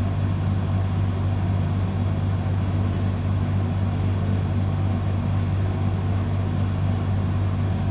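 Steady low hum, like a fan or motor running, unchanging throughout.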